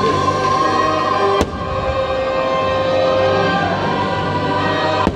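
Halloween fireworks show soundtrack music playing loudly over park loudspeakers, with sustained notes, and fireworks going off under it. There is a sharp crack about a second and a half in and another near the end.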